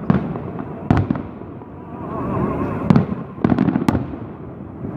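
A fireworks salute's final volleys: sharp bangs about a second in, and a quick cluster of them between three and four seconds in, over a continuous low rumble of more distant bursts.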